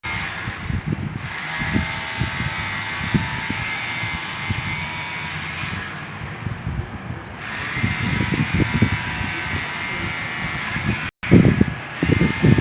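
Rotary hammer (martelete) running and hammering into concrete: a steady motor whine over rapid low blows. It cuts out for an instant near the end and comes back louder.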